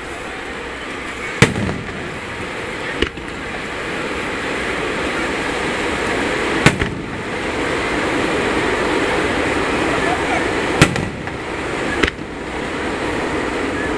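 Aerial firework shells bursting: five sharp bangs, about one and a half, three, six and a half, eleven and twelve seconds in, over a steady background of crowd voices.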